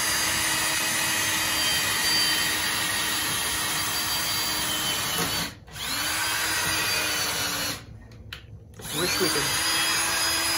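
Cordless drill running overhead into the cabin's log wall and ceiling. It runs steadily in three runs, winding up in pitch at each start and winding down at each stop: a long run of about five seconds, then two shorter runs after brief pauses.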